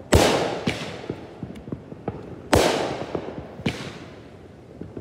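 Aerial firework shells bursting: two loud booms about two and a half seconds apart, each echoing out, with smaller pops and faint crackling between them.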